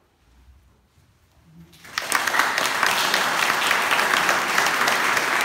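A moment of near silence, then a small audience starts applauding about two seconds in and keeps clapping steadily.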